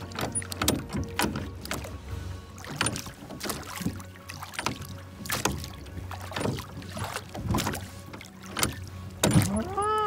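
Rowboat being rowed with wooden oars: blades dipping and splashing in the water, with irregular knocks and clicks. Near the end a louder drawn-out tone rises and falls in pitch.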